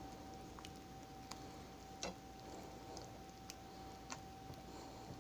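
Faint, irregular clicks of a utensil touching a skillet as cream of chicken soup is worked over chicken breasts, over a steady faint hum.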